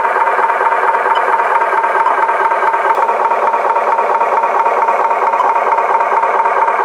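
Toy truck running with a steady mechanical whir and rattle that holds an even pitch and level throughout.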